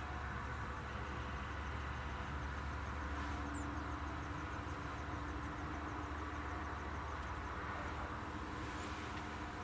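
Steady low hum of a distant engine, with a held mid-pitched tone from about three seconds in until near the end, and a faint, even high ticking throughout.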